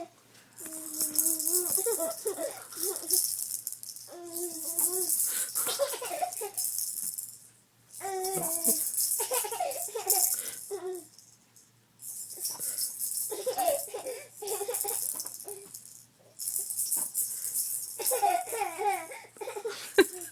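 Noise-making toy ball rattling when shaken, in five bursts of about two to three seconds each, while a young child laughs hard in bursts with it.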